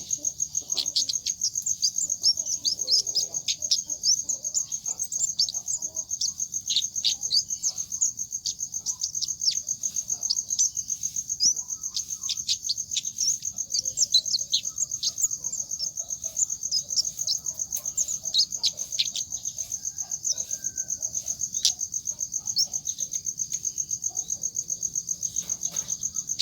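Calls of the kemade bird: a continuous high, rapidly pulsing trill with many quick, sharp down-slurred chirps over it.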